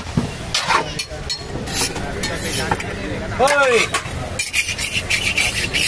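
Metal spatula scraping and clinking on a dosa griddle in quick, irregular strokes.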